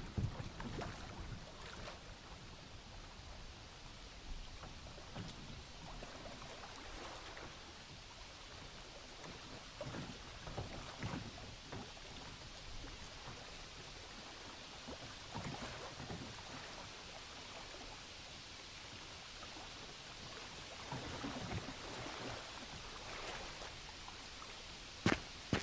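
Layered ambient soundscape of a steady wash of rain and water, with soft, irregular knocks of boats on the water scattered through it. Near the end a sharp footstep comes in, the start of a walk.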